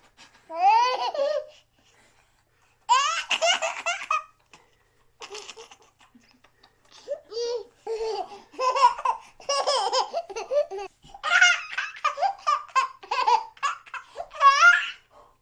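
A young child laughing in high-pitched bursts. There are short pauses between fits in the first half, and in the second half the laughs come almost without a break.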